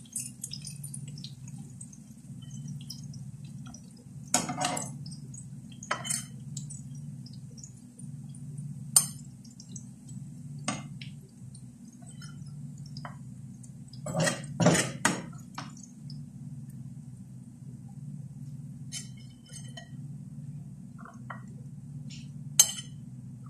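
Metal utensils, a slotted spatula and a fork, clinking and scraping against a frying pan and a ceramic plate as fried chicken pieces are lifted out and set down, with scattered single clinks and a quick run of them about halfway through. A steady low hum goes on underneath.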